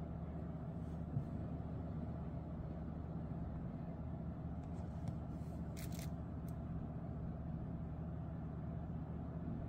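Steady low background hum, with a few light clicks about five to six and a half seconds in, as a finger taps the phone's touchscreen.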